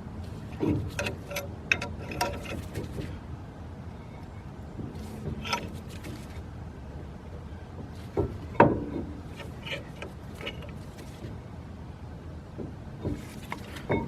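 Scattered metallic clicks and knocks from a C-clamp being worked against an old brake pad to push a disc brake caliper piston back into its bore, with the loudest knock about eight and a half seconds in.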